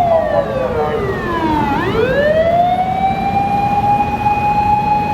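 Emergency vehicle siren wailing: a single tone that slides down over about two seconds, then winds back up and holds steady.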